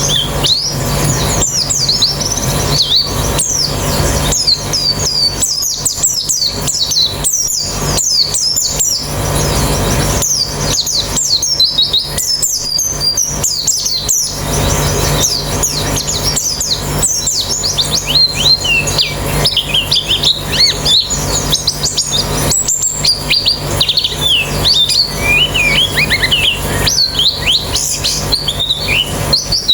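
A colony of white-eyes (pleci) chirping and chattering non-stop: many rapid, high sweeping notes from several birds overlapping.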